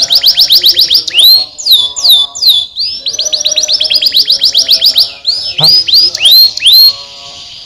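Domestic canary singing: fast rolling trills of repeated high notes, about a dozen a second, alternating with slower swooping whistles. A second long trill comes about three seconds in, and the song softens near the end.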